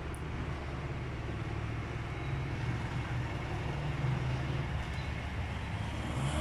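Steady low mechanical rumble with a faint hiss above it.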